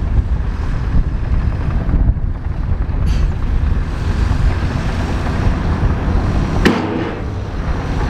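Heavy wind rumble on the microphone over the running of a large bulldozer at work, with one sharp clank about two-thirds of the way through.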